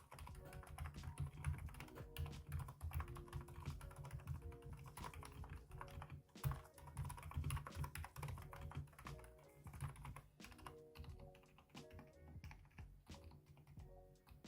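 Typing on a mechanical keyboard fitted with Kailh Box Silent Pink linear switches, whose stems carry rubber dampers that muffle the press and release: a quick, irregular run of soft, damped keystrokes. Soft background music plays underneath.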